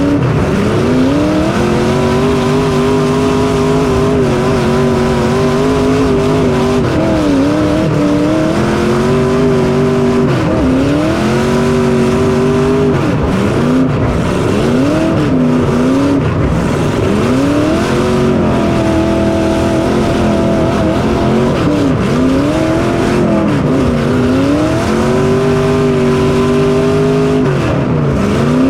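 A small racing engine heard onboard, climbing in pitch, holding steady, then dropping off and picking up again every few seconds as the car is run hard lap after lap.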